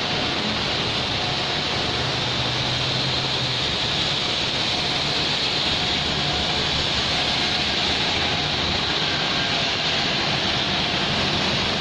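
Heavy rain falling steadily as a constant, even hiss over a wet road, with a faint low hum of passing traffic in the first few seconds.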